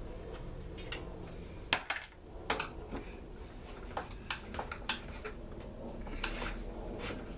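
Scattered sharp clicks and clinks of hand tools and small parts handled on a Stihl leaf blower's housing while bolts are being taken out, about eight irregular taps over a low steady hum.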